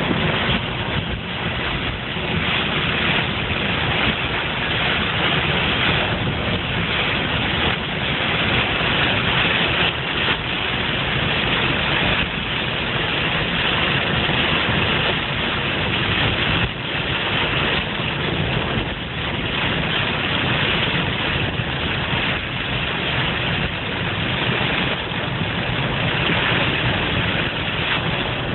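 Car engine running under a steady rushing hiss of water and spray as the car drives through floodwater.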